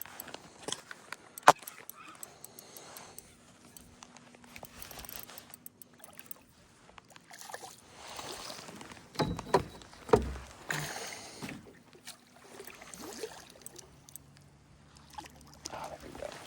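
Splashing water and scattered knocks and clicks in a canoe as a hooked bass is brought in and landed, with a cluster of louder splashes and knocks a little past halfway.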